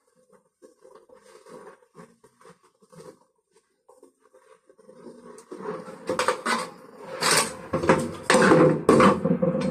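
Light metallic clinks and taps, as of tools and metal parts being handled, growing much louder and denser over the last few seconds.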